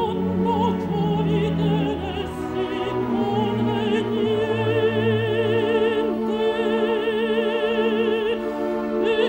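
Mezzo-soprano singing a sustained Italian-style operatic line with wide vibrato, over an orchestra holding long chords underneath.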